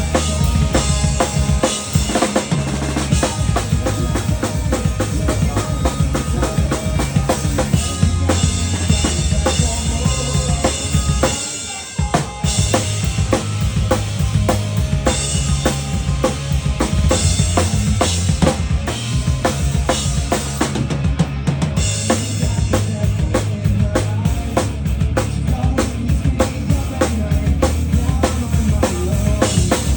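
Live rock band playing at full volume, the drum kit to the fore with kick, snare and cymbals driving the beat. The music thins out briefly for a break a little before twelve seconds in, then the full band comes back in.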